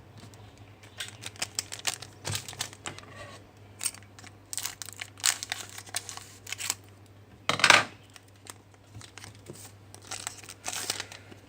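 Trading-card pack wrapper crinkling and tearing open, with cards rustling as they are handled: a string of short, irregular scrapes and crinkles, the loudest about two-thirds of the way through.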